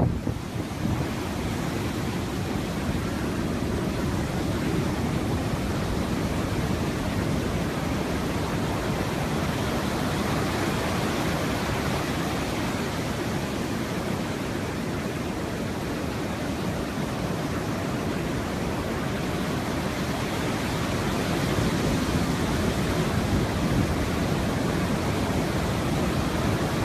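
Hurricane wind and heavy rain: a steady rushing noise with no letup, growing slightly louder near the end.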